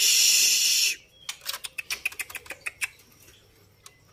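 A caged juvenile white-rumped shama gives a loud harsh rasping call of about a second, then a quick run of sharp ticking calls.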